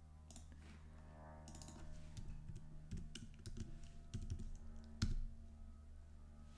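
Computer keyboard typing: irregular, fairly quiet key clicks, with one sharper keystroke about five seconds in.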